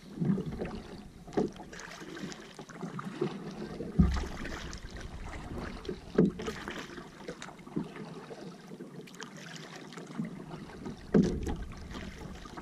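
Kayak paddling: a double-bladed paddle dipping and splashing in the water stroke after stroke, with irregular knocks, the loudest about four seconds in and again about eleven seconds in.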